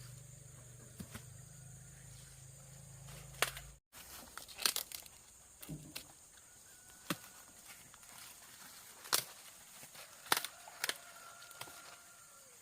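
Scattered sharp snaps and crackles, as of dry corn plants being handled and broken. A low steady hum is heard at first and cuts off abruptly about four seconds in.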